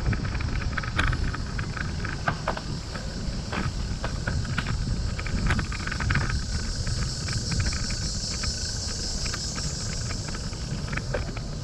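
Wind rumbling on the microphone during a bicycle ride, with scattered short clicks and ticks. A steady high-pitched insect buzz runs over it and gets stronger in the second half.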